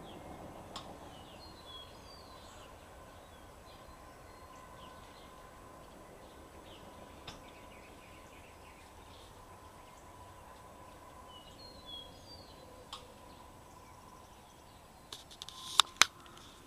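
Quiet outdoor ambience with a faint steady high tone and a few brief bird chirps, about a second in and again past the middle. Near the end comes a cluster of sharp clicks with two loud knocks.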